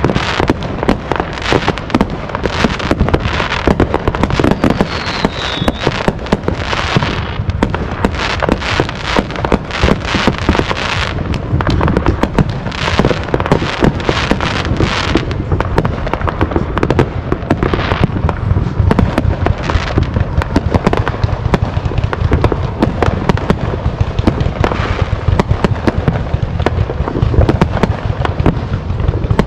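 Many consumer fireworks going off at once: a dense, unbroken barrage of bangs and crackling, with a short falling whistle about five seconds in.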